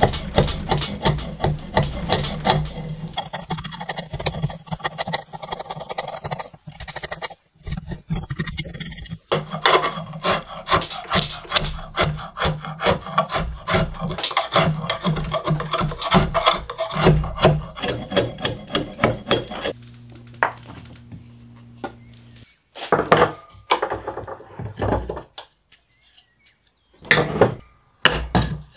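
A flat steel chisel blade scraping and prying the bark off a wooden branch in rapid, repeated strokes. Near the end the strokes come in short runs, with pauses between them.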